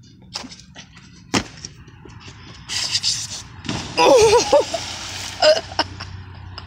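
A person jumps into a swimming pool with a yell, followed by a splash. A sharp knock sounds about a second and a half in.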